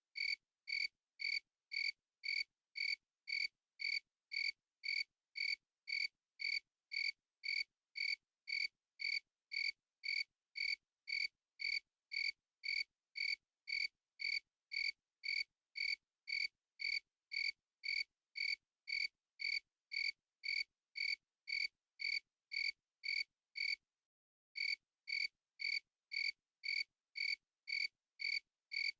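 A single cricket chirping steadily, about two short, clear chirps a second, with a brief pause about three-quarters of the way through.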